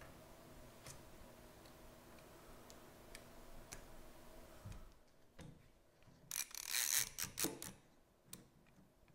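Faint scattered ticks over a low steady hum as glue is worked into the crack with a thin metal feeler gauge. A few seconds later comes a short, loud metallic rattle and scrape as a bar clamp is slid into place and fitted onto the glued chair arm, followed by a smaller click.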